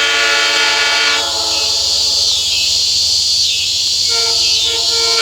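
Multi-chime locomotive air horn sounding a chord: a long blast that cuts off about a second in, then a second blast starting about four seconds in. Insects buzz steadily in the background.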